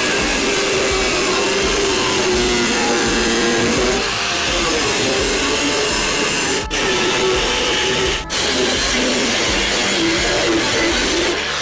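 Angle grinder with a cut-off wheel cutting through the rusted sheet steel of a truck door, its whine wavering with the load. It cuts out briefly twice, in the second half.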